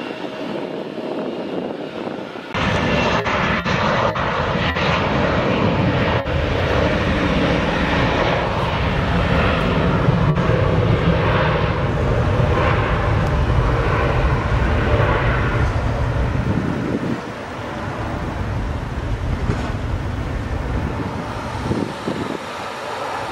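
Jet engines of a Boeing 717 at takeoff power as it climbs away after takeoff: a loud, steady jet noise with a deep rumble, starting abruptly about two and a half seconds in and dropping off sharply about 17 seconds in as the aircraft recedes.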